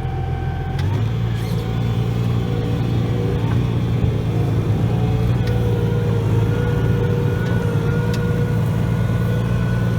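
Tractor engine running steadily. Its revs step up about a second in, then hold.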